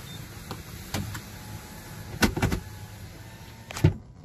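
A car's power window closing after paying at the pay station, with a few knocks and clicks over a steady low hum, the loudest knock near the end.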